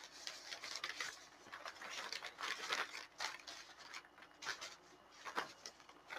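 Paintings being shuffled and stacked: irregular rustling and scraping, with a sharper knock about five seconds in.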